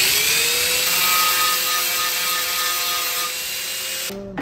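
Electric angle grinder grinding down a small metal post on a headlight bucket. The motor's pitch rises as it comes up to speed, then holds steady while the disc works the metal, and it cuts off about four seconds in.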